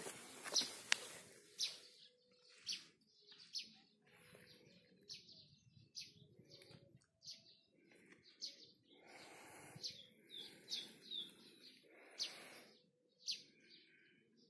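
Small birds chirping: short high chirps about once a second, with a quick run of several notes about ten seconds in.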